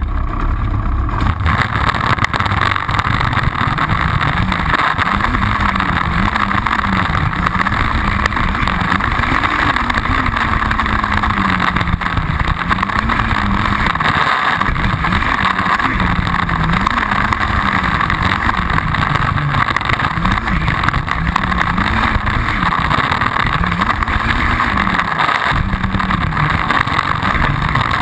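Yamaha Banshee ATV's two-stroke twin engine running under way, its pitch rising and falling every second or two as the throttle is opened and closed.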